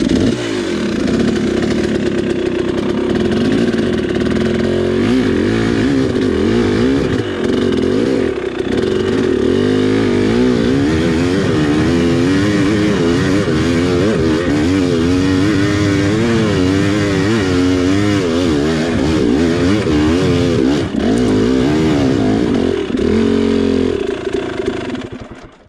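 Two-stroke single-cylinder engine of a 2019 KTM 300 XC dirt bike revving hard in second gear, its pitch surging up and down as the throttle is worked, the bike struggling for grip on loose ground on a steep climb. The engine sound drops away near the end.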